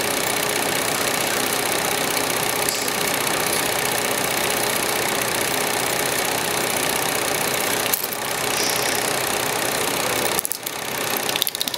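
Steady mechanical running noise with a faint constant tone. It breaks briefly about eight seconds in and turns choppier near the end.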